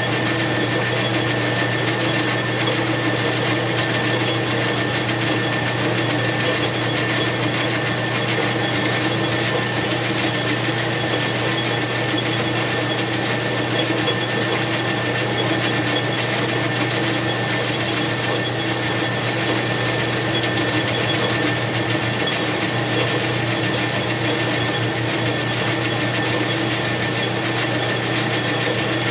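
Metal lathe running steadily, a motor hum with a thin steady whine above it, as it spins an aluminium chainsaw piston.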